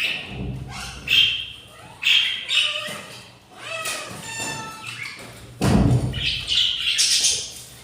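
Budgerigars squawking and chirping in a series of short, harsh calls, with one loud thump about six seconds in.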